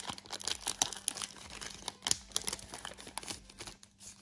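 Foil wrapper of a Pokémon card booster pack crinkling and being torn open by hand, a rapid run of small crackles.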